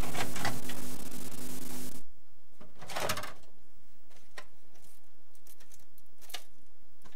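A steady buzzing hum cuts off about two seconds in. Then come a few clicks and knocks of a VHS cassette being handled and its loose tape pulled out, the loudest a clunk about a second later.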